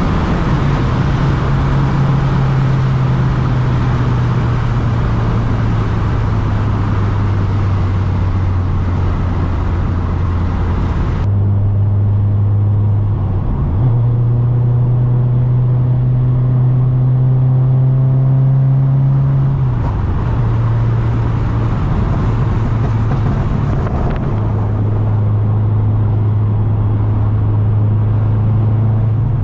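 Exhaust of a heavily tuned turbocharged Subaru STI flat-four running at fairly steady cruise, recorded at the rear of the car. Its low pitch holds for stretches and steps up or down a few times, with a faint, slowly rising higher tone in the second half.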